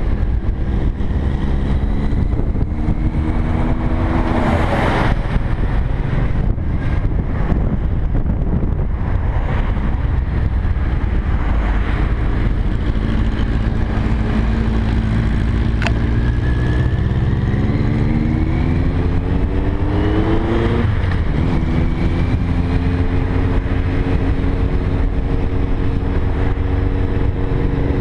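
Cruiser motorcycle engine running under way with heavy wind and road noise. The engine pitch climbs as it accelerates and drops sharply at a gear change about five seconds in, then climbs again and drops at another shift around twenty-one seconds in.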